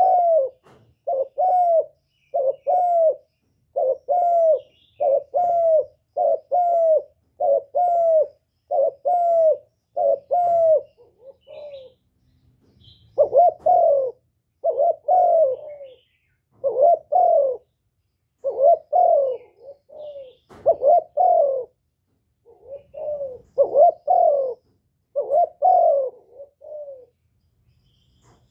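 Spotted dove (cu gáy) cooing: a long series of short, falling coo notes repeated in quick runs, with brief pauses about eleven seconds in and again about twenty-two seconds in.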